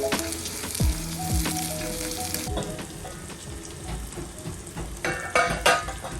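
Food sizzling and crackling in hot oil in a pan while it is stirred, with a few sharp knocks near the end. Background music with sustained notes plays along.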